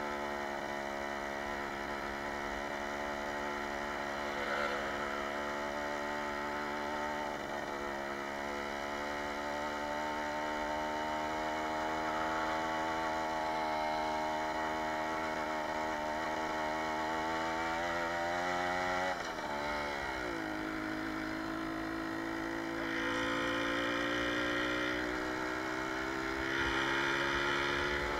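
Jawa 20 Pionýr's 50 cc single-cylinder two-stroke engine running under way. Its pitch dips sharply and climbs back about two-thirds of the way through, then rises slowly toward the end.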